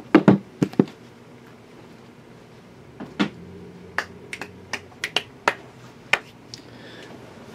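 Shrink-wrapped card boxes set down on a table mat with a few sharp taps in the first second, followed by scattered single sharp clicks, about one every half second, that stop near the end.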